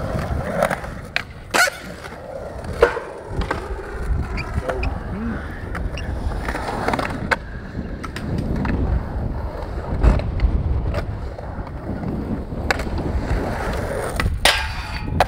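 Skateboard wheels rolling over smooth concrete, with several sharp clacks of tail pops and board landings.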